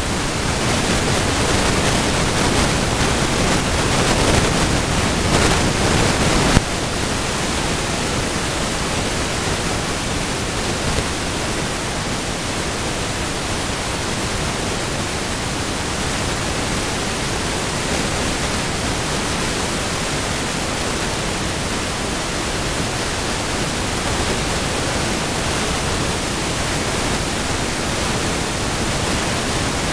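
Steady sizzling of garlic, shallots and shrimp frying in butter in a skillet. It is a little louder for about the first six seconds, then settles slightly lower and even.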